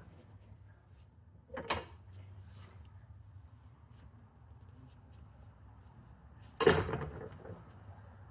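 Two clacks a few seconds apart, the second louder and ringing on briefly: a vinyl fence gate being swung and banging against its latch.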